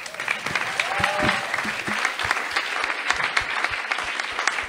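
Audience applauding, a dense patter of many hands clapping that starts suddenly and keeps going.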